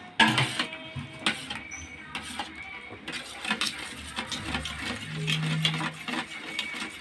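Steel spoon stirring boondi raita in a steel bowl, clinking and scraping against the bowl in quick, irregular taps.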